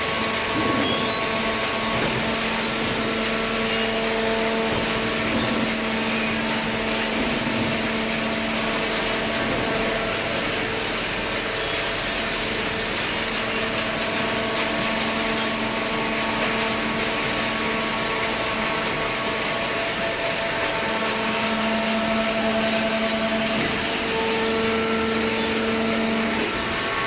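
Horizontal hydraulic cardboard baler running: a steady hum from its hydraulic power unit over a broad mechanical rush.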